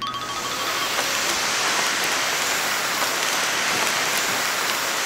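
Cartoon vacuum suction machine cutting in suddenly and running with a steady rushing hiss as it sucks up scattered papers.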